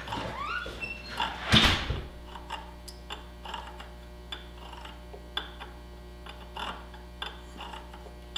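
Thread chaser tool being worked by hand on a quad's steel wheel-spindle threads to clean up cross-threaded damage: a short rising squeak, a loud clunk about a second and a half in, then light metallic clicks about every half second.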